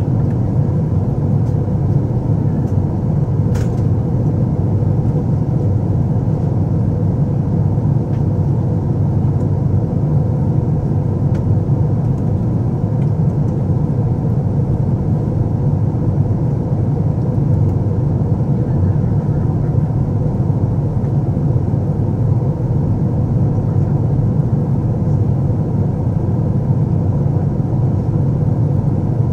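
Steady cabin roar inside an Airbus A350-900 in flight: the deep, unchanging drone of its Rolls-Royce Trent XWB engines and rushing air, with a faint steady hum above it.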